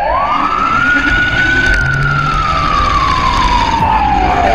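Police siren wailing: one slow cycle that rises quickly in pitch over about a second and a half, then falls slowly through the rest.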